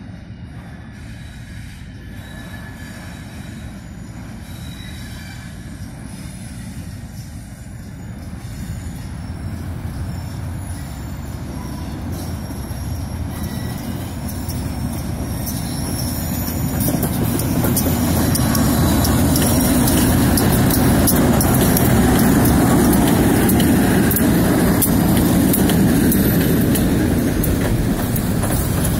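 Freight train led by two GE B23-7 diesel locomotives approaching and passing close by, the diesel engines getting louder over the first half, then the cars rolling past with wheels squealing and clacking over the rail.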